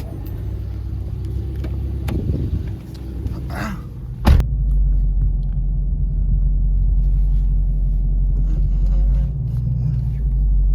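A car's low, steady rumble, with one sharp click about four seconds in.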